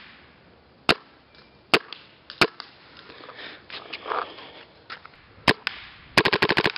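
Vanguard Demon paintball marker firing: four single shots spaced a second or more apart, then near the end a rapid string of shots at about fifteen a second.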